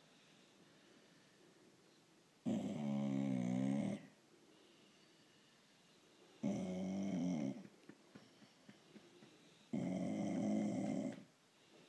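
Blue Staffordshire bull terrier making a grunting, snore-like noise three times, each grunt lasting about a second or more with a wavering pitch. It is the noise she makes when she wants petting or attention.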